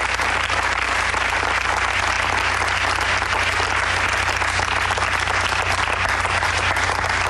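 Steady applause from a small crowd, clapping for gymnasts who have just been named to the Olympic team.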